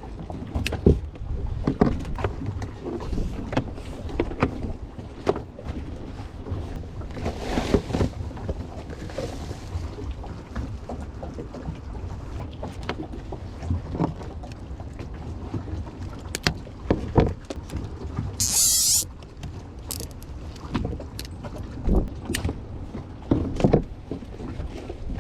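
Irregular knocks and clunks of work aboard a small old boat, over a steady low rumble of wind on the microphone and water. A short hiss breaks in about three-quarters of the way through.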